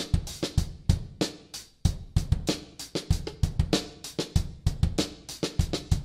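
Acoustic drum kit played: a 1980 Pearl 8-ply maple kit with Zildjian A cymbals, in a steady stream of paradiddle strokes with a shuffle feel, with accented snare and bass drum hits and cymbals.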